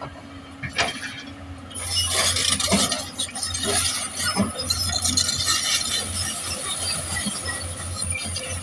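Excavator's hydraulic breaker hammering, a dense metallic clatter over the steady hum of the engine, starting about two seconds in.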